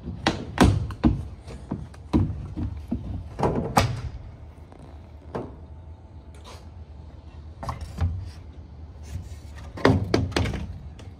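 Irregular hollow knocks and thuds on OSB roof sheathing laid over wooden trusses, a dozen or so impacts at uneven intervals, over a steady low rumble.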